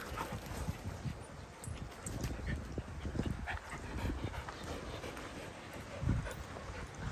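A group of dogs at play: faint dog noises and scuffling over bark chippings, with a low rumble and a few soft thuds and no loud barking.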